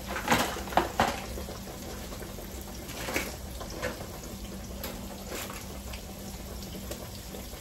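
Pork chop deep-frying in an electric deep fryer: the hot oil bubbling and sizzling steadily, with a few sharp crackles, most of them in the first second.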